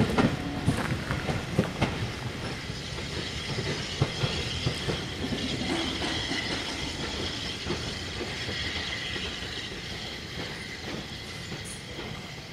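Passenger coaches running away over rail joints and points, the wheels clicking and clattering, loudest at first and fading steadily as the train draws off. A faint high wheel squeal runs through the middle.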